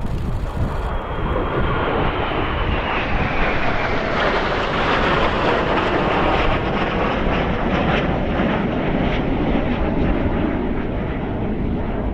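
Kawasaki T-4 jet trainers passing overhead, their twin turbofan engines making a loud, steady jet noise that builds to its loudest about midway through, with a high whine that falls in pitch over the first few seconds.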